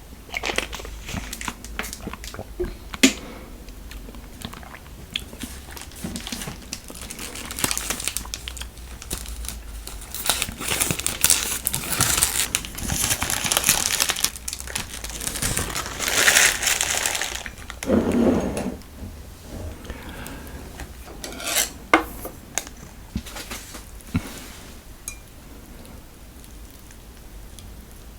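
Plastic food packaging crinkling and tearing, with scattered clicks and clinks of utensils against containers; the crinkling is loudest through the middle.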